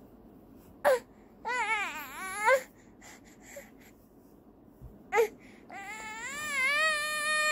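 Four-month-old baby fussing and crying: a short yelp, a wavering wail, another yelp, then a long wail near the end that climbs and holds. The parent takes the crying for tiredness after crawling practice.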